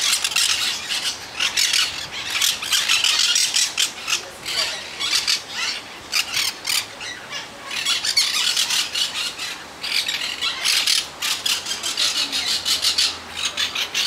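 Caged parrots squawking and screeching: harsh, rasping calls in rapid clusters, broken by short pauses.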